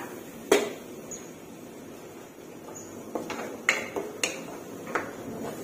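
Wooden spatula stirring in a wok, knocking and scraping against the pan: a handful of sharp knocks, the loudest about half a second in and a cluster between three and five seconds in.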